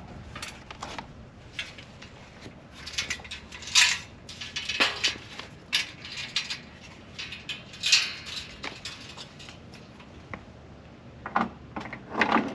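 Irregular metallic clinks, clicks and rattles of mounting bolts and tailgate-table hardware being handled and fitted into slots on a tailgate, with the loudest clanks about four and eight seconds in.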